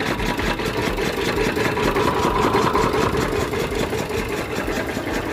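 Sugarcane juice crusher machine running steadily, its motor making an even, rapid rhythmic chugging as cane is pressed.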